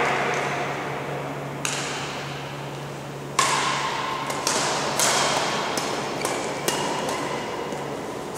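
Badminton rackets striking a shuttlecock in a rally: a series of sharp hits, often about a second apart, each echoing in the hall.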